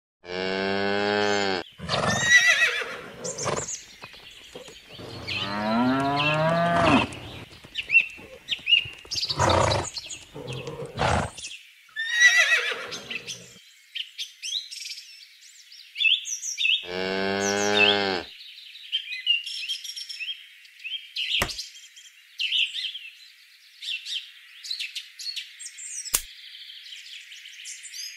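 Farmyard ambience of cattle mooing, three long calls, the middle one rising in pitch, over birds chirping that grow busier in the second half.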